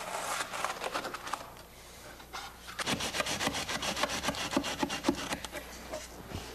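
Trowel scraping and smoothing wet deck mud, a sand-and-cement mortar bed, in a series of short rasping strokes. The strokes pause briefly about two seconds in, then come in a quicker run.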